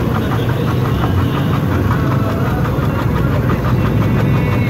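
Steady low rumble of an idling engine, with a faint even pulse.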